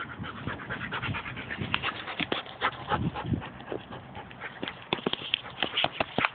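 A dog panting, mixed with scattered short clicks and rustles.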